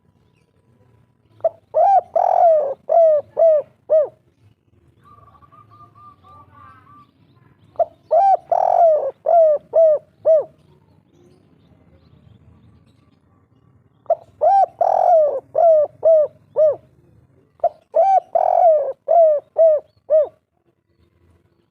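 Spotted dove (tekukur) cooing in the 'kuk 3' style: four phrases, each a quick run of short repeated coo notes. A faint higher run of short chirps sounds between the first two phrases.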